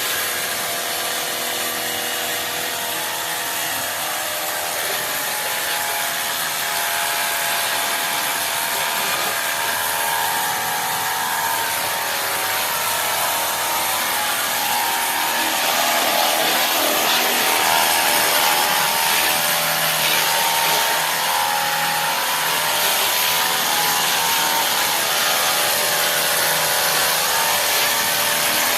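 Portable Ecosen jet cleaner's small electric pump running steadily with a whine, spraying soapy water through its foam bottle onto a motorcycle with a continuous hiss.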